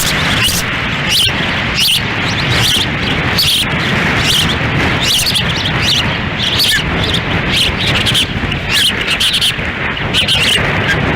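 Wind buffeting the nest-cam microphone in a constant rush, with ospreys giving short, high chirping calls over and over throughout.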